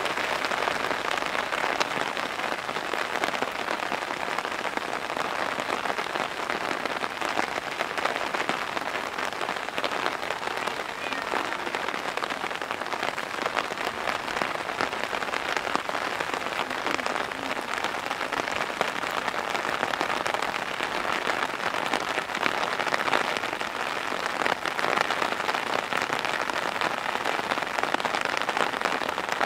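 Downpour of heavy rain: a steady, dense hiss of falling water with many small drop ticks.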